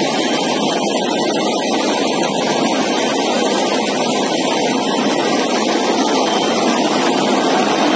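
Potato chip production line machinery running, a loud, steady, unbroken noise with no strokes or rhythm.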